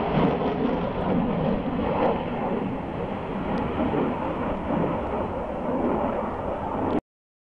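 Steady deep rumble of a Su-27 fighter's twin turbofan jet engines flying overhead, cutting off abruptly near the end.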